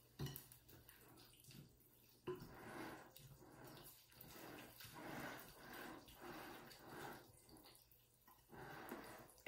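Faint, uneven strokes of a wooden spoon stirring a thick, wet tuna and leek filling with raw egg in a glass bowl. The stirring starts about two seconds in.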